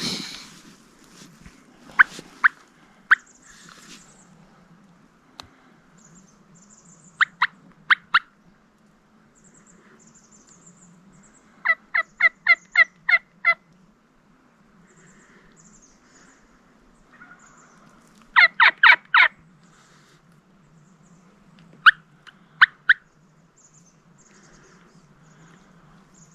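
Wild turkey yelping in short series of evenly spaced notes, a few notes at a time, the loudest series about two-thirds of the way through. Faint high chirps of small birds lie behind it.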